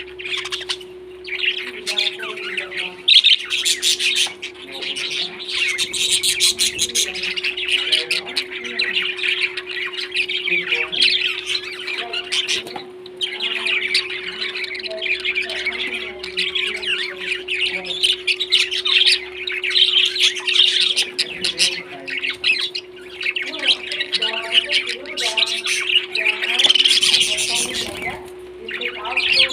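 Parrots chattering and squawking, many overlapping calls with a few short lulls. A steady low hum runs underneath.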